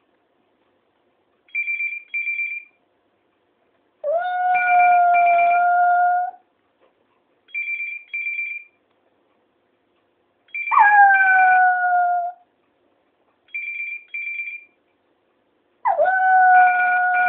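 A dog howling three times, each a long, steady howl of about two seconds that rises at its onset. It howls along with a repeating electronic double-beep ring that sounds about every three seconds.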